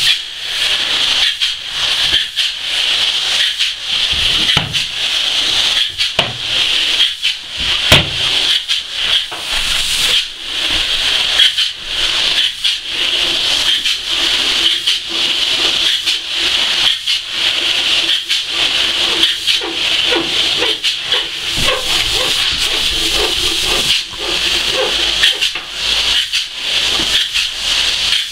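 Spray foam gun hissing loudly as it sprays closed-cell polyurethane foam onto a roof slope, a steady high hiss cut by many brief breaks as the trigger is let off between passes.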